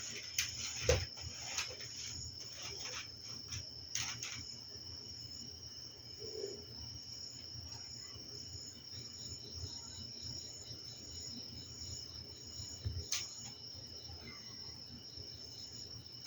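Crickets trilling steadily in high, continuous tones over a low steady hum. A handful of sharp clicks and taps come in the first four seconds, and one more about three-quarters of the way through.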